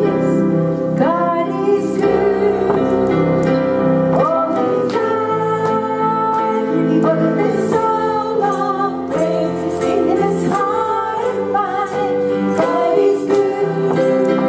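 Women's voices singing a gospel worship song over a steady musical accompaniment of held notes.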